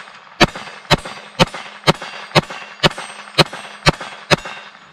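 GSG Firefly .22 LR pistol firing nine shots in a steady string, about two a second, with CCI Mini-Mag high-velocity rounds. The action cycles each round without a failure to feed.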